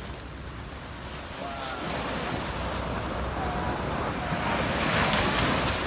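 Small waves washing onto the shore, swelling to a louder wash about five seconds in, with wind on the microphone.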